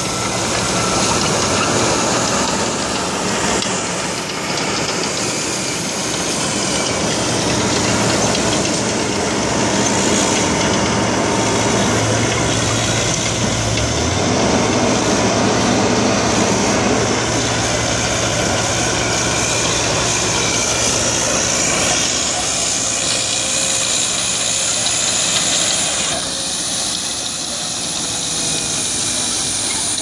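Heavy diesel engines of a Caterpillar D5K XL crawler bulldozer and nearby crawler excavators running steadily as they work the soil.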